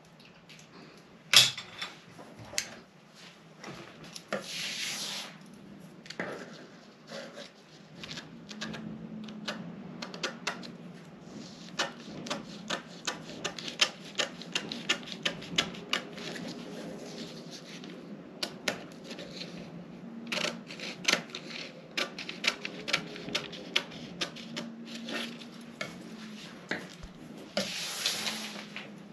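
Scattered clicks and taps with paper rustling from pattern-drafting tools handled on a paper pattern. The clicks come thick and fast in the middle, and there are two longer rustles, about five seconds in and near the end.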